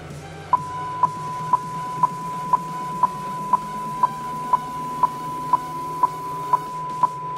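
Steady 1 kHz test tone of an amplifier dyno's burst power run, driving a four-channel car amplifier into a 4-ohm load. It starts about half a second in, with a sharp click about twice a second.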